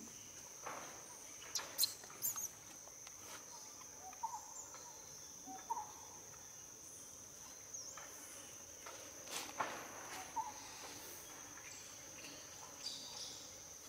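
Steady high-pitched insect drone from crickets or cicadas, with a few sharp clicks and several short, faint chirps over it.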